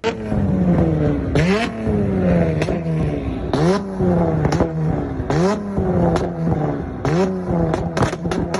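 Modified car engine being revved in a run of quick throttle blips, each sharp rise in revs followed by a slower fall, with the exhaust popping and crackling as the revs drop.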